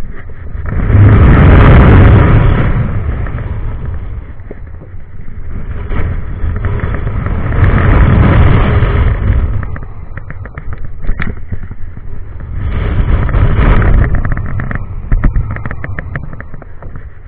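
Wind buffeting an on-ride camera's microphone on a swinging giant frisbee pendulum ride. The rush swells three times, about six seconds apart, with each swing, and there are scattered clicks and crackles between the swells.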